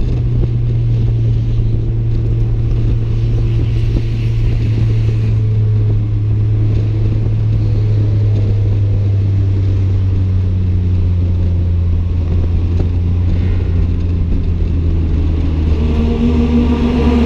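Toyota AE86 Levin's 4A-GE twin-cam inline-four engine and 5Zigen exhaust heard from inside the cabin, running steadily at a moderate speed with its pitch sagging slowly. Near the end the note grows fuller as more of its higher tones come in.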